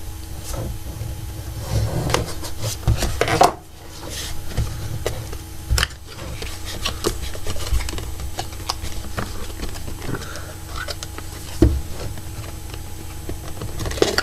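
A camcorder's retail box being handled and opened by hand: its tabs broken and the packaging worked loose, with rubbing and scraping and scattered sharp clicks and knocks, the loudest a little over three seconds in.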